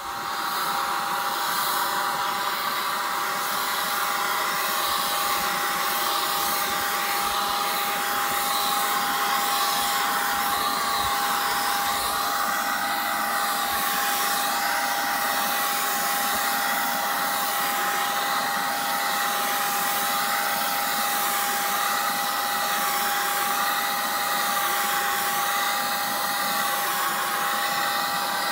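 Handheld electric paint spray gun running steadily as it sprays paint: a steady high motor whine over a slowly wavering hiss of air. It switches on abruptly right at the start.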